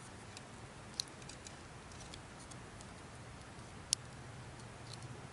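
Faint clicks of a plastic clip-on fishing bobber being handled and rigged onto line: a sharp tick about a second in and a louder one near four seconds, with a few softer ticks between.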